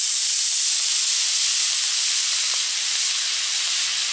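24 mm E6 long-burn model rocket motor burning: a loud, steady hiss of thrust as the rocket glider climbs away, slowly growing a little quieter.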